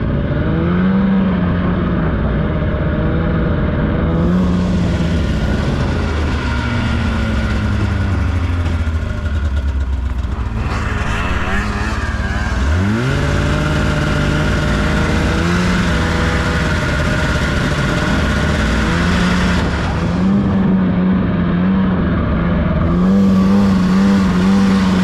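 Snowmobile engine running under load, its pitch rising and falling with the throttle. About halfway through the pitch drops low, then climbs sharply as it revs up again, with a steady hiss of snow and track noise over it.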